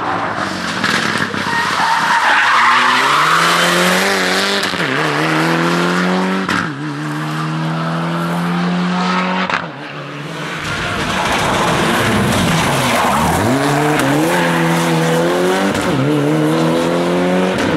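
Mitsubishi Lancer Evolution rally car's turbocharged four-cylinder engine revving hard, its pitch climbing in steps with a short drop at each gear change. It breaks off about ten seconds in, and another car's engine starts climbing through the gears the same way.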